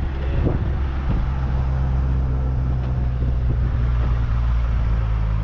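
John Deere 2850 tractor's 3.9-litre four-cylinder diesel engine running steadily.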